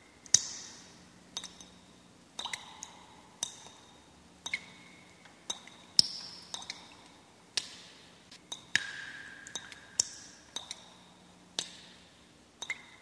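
Water dripping: single drops plink into water about once a second, each a sharp click with a short ringing note, over a faint low hum.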